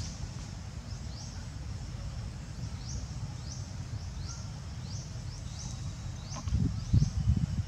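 Outdoor ambience: a short, high, rising chirp repeated about twice a second, over a steady low rumble that has a few louder bumps near the end.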